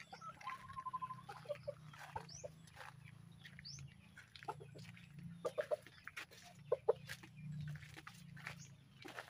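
Chickens clucking in short scattered calls, with brief high chirps, over a low steady hum. Footsteps crunch on gravel.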